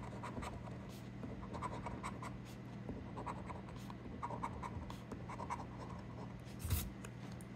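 A coin scratching the coating off a paper scratch-off lottery ticket in many short, quick strokes, with one louder stroke near the end, over a low steady hum.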